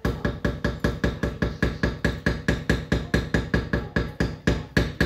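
Wooden spoon knocking against the sides of a metal cooking pot while stirring briskly: an even run of about five or six knocks a second, each with a short ring from the pot.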